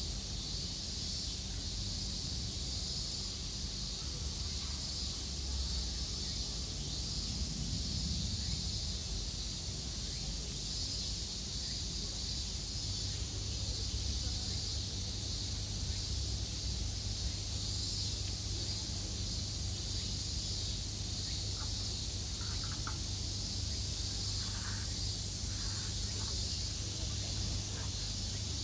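Cicadas droning steadily in a high, slightly pulsing chorus over a low background hum.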